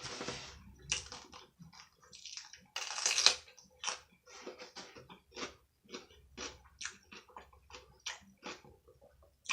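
A person chewing food in a run of short, irregular mouth sounds, with a longer, louder burst about three seconds in.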